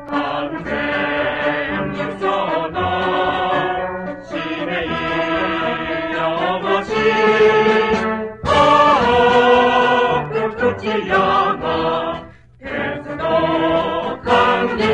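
Mixed choir singing a song in phrases with brief breaks between them, accompanied by a high-school brass band, played from a 1970s flexi-disc (sonosheet) record.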